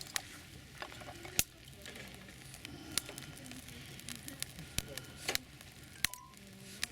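Newly lit fire crackling, with sharp pops every second or so.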